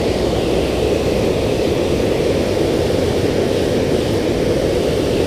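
Steady roar of river water pouring over a dam spillway, an even rushing noise that holds level throughout.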